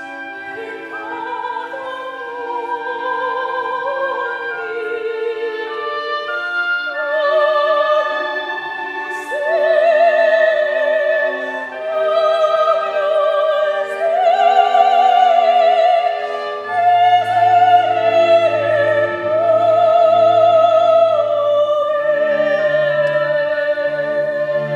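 Operatic solo voice singing with strong vibrato over a chamber orchestra, climbing to long high held notes in the second half; a low bass line enters in the orchestra about two-thirds of the way through.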